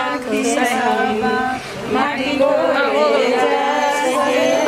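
A group of women singing a song together, several voices holding long notes.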